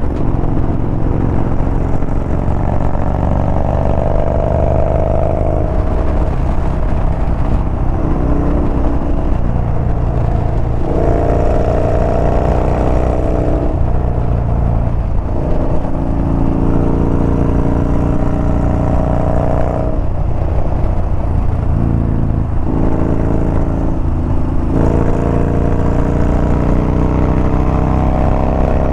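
Yamaha Bolt's air-cooled V-twin motorcycle engine being ridden hard, its pitch climbing under throttle and breaking off several times at each shift or roll-off.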